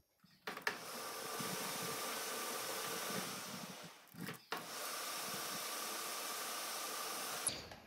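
Metal lathe running with a steady hiss and whine, switched on with a click under a second in, stopping briefly about four seconds in, starting again, and cutting off near the end.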